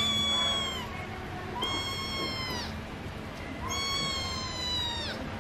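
Young kitten mewing three times: long, high-pitched calls, each bending down in pitch at the end.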